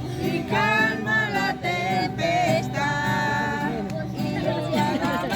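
Music: a voice singing a melody over strummed guitar accompaniment with a steady beat.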